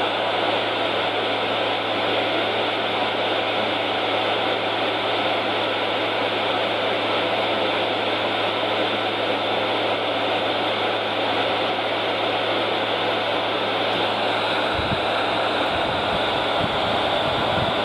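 Loud, steady static hiss from weather radio receivers left tuned to NOAA station KDO94 after its transmitter has gone off the air, so the receivers play dead-air noise. A low hum under the hiss stops about 15 seconds in and irregular low rumbling takes its place.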